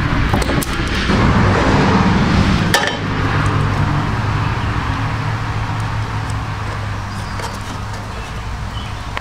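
A motor running steadily, slowly fading, with a single sharp click of a crimping tool closing on a wire connector about three seconds in.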